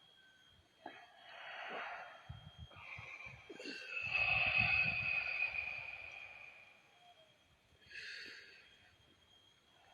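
Heavy breathing from people doing breathwork: several loud, wheezy, sighing breaths. The longest and loudest comes about four seconds in and has a whistling edge, and a short one follows near the end.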